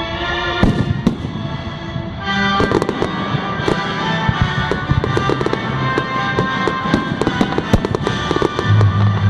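Fireworks going off in quick succession, sharp bangs and crackles that thicken into a dense barrage about two seconds in, over loud music with sustained notes and a heavy bass line coming in near the end.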